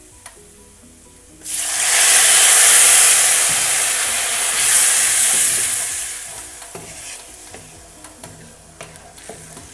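A cup of water hitting the hot butter and oil in a pan of fried vermicelli. It sizzles loudly all at once about a second and a half in, then dies down over the next few seconds.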